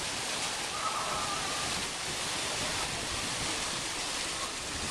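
Mountain stream pouring through a rocky cascade in whitewater, a steady rush of water close by.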